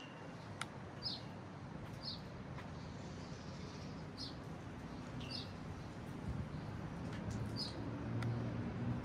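A bird chirping short, high notes about once a second over a faint background hiss. A low hum builds in the second half.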